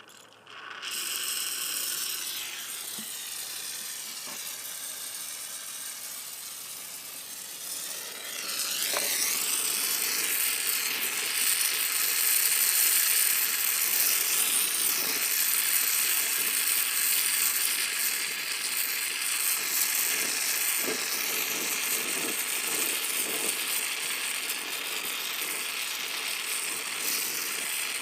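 Brazing torch flame hissing steadily. It starts abruptly about a second in and grows louder about nine seconds in.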